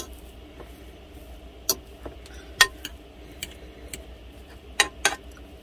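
A fork mashing boiled potatoes in a saucepan. Its tines knock against the pot in irregular sharp clicks, about half a dozen times, over a faint low hum.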